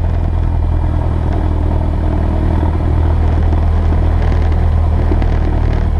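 Cessna 172S's four-cylinder Lycoming engine and propeller running steadily at low power, a constant low drone with no change in pitch.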